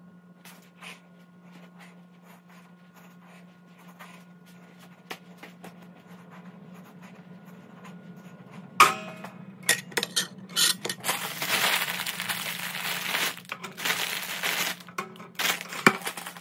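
Low steady hum with faint ticks, then an electric toaster popping up with a sharp clack about nine seconds in as its countdown ends. Several seconds of crinkling and rustling with small clatters follow as toast is handled onto a plate.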